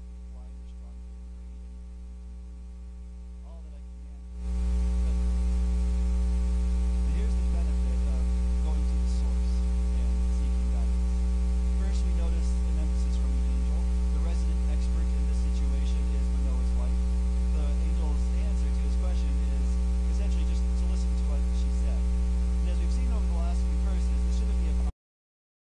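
Steady electrical mains hum with a stack of overtones in the recording's audio feed, where the sermon's speech has dropped out. It steps up sharply in level about four seconds in and cuts to silence just before the end.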